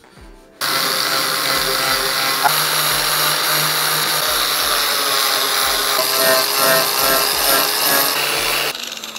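Electric angle grinder with a sanding disc, grinding old paint off an aluminium boat hull. It starts abruptly about half a second in, runs steadily, and stops shortly before the end.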